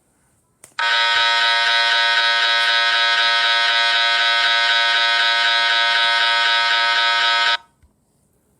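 A loud electric buzz, held steady for about seven seconds after a short click, then cutting off suddenly.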